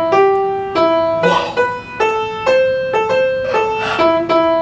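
Piano music: a simple melody of single notes, each struck and then dying away, a new note about every half second.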